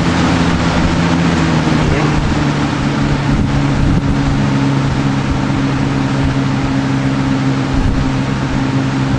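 Lasko 3723 box fan with paddle blades running on high: a steady rush of moving air over a low, even motor hum.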